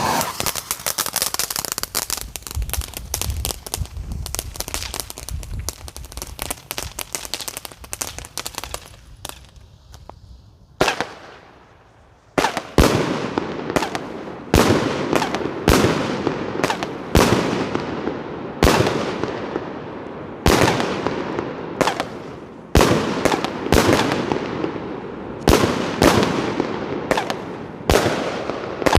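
Consumer firework going off: about nine seconds of dense, rapid crackling, then after a short lull a long series of loud bangs, roughly one a second, each trailing off.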